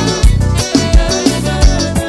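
Forró band playing an instrumental passage, with a steady beat of low drum hits about twice a second under bass and sustained instrument lines.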